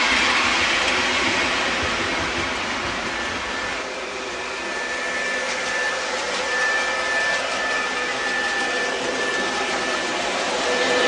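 MTH O-gauge ES44AC model diesel locomotive pulling a string of grain hoppers along the track: steady running noise of wheels and motors mixed with the locomotive's diesel engine sound. It gets a little quieter about four seconds in, and a thin steady high tone joins from about six seconds in.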